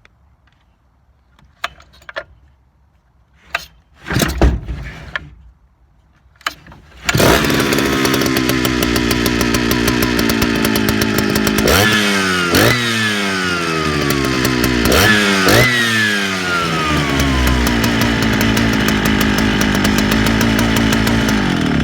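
Vintage Jonsered chainsaw's two-stroke engine being started: a few short knocks and a brief burst, then it catches about seven seconds in and runs steadily. It is revved twice, each time rising quickly and settling back slowly to idle.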